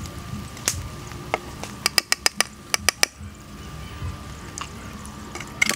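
Stainless metal tongs clicking and tapping while handling pieces of fried pork on a plate, with a quick run of about eight sharp clicks about two seconds in and a few single clicks elsewhere.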